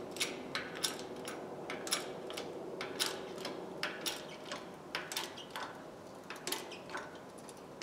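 Irregular light metallic clicks and taps, a few a second, as a small pipe wrench is shifted on wood blocks under a shop press ram, over a steady low hum.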